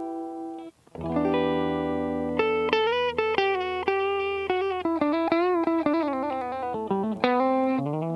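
Aria Pro II Vanguard electric guitar played through a clone of the ThorpyFX Fat General optical compressor pedal and a cab simulator. A ringing chord dies away and a new chord is struck about a second in. A single-note melody with string bends and vibrato follows, ending on another chord.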